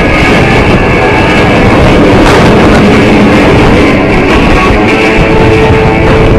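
Rock music with guitar played loudly over the air show's loudspeakers, mixed with a steady rumble of jet engines.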